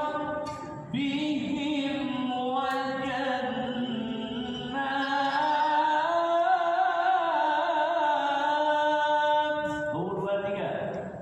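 A single voice chanting Qur'an recitation (tilawah) in a melodic style. The long held phrases waver in ornament through the middle, after a short pause about a second in, and the voice trails off near the end.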